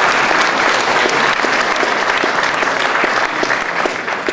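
Audience applauding in a hall, a dense steady patter of many hands clapping that thins out near the end.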